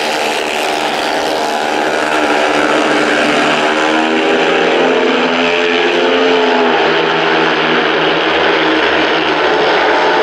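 Several speedway bikes racing, their 500 cc single-cylinder methanol-burning engines at high revs; the overlapping engine notes rise and fall in pitch as the bikes go through the bend and pull away down the straight.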